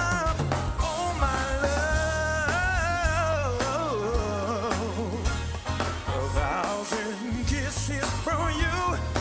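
Live band playing: a singer holds drawn-out notes with sliding vocal runs over a steady bass line, drums and keyboards.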